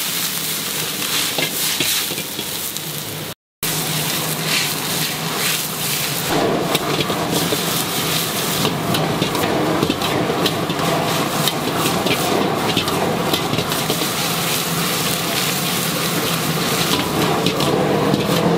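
Rice noodles sizzling and frying in a hot, smoking wok, stirred with a metal spatula that scrapes and clicks against the pan many times. The sizzle grows fuller from about six seconds in, and the sound cuts out briefly at about three and a half seconds.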